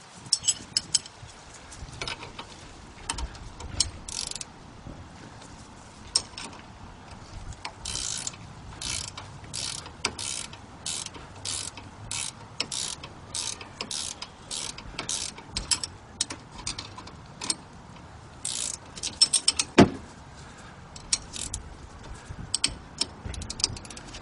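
Ratcheting spanner clicking as the front brake caliper's slider-pin bolts are wound in, in runs of short back-swing strokes at about two a second, with one sharp metallic knock about twenty seconds in.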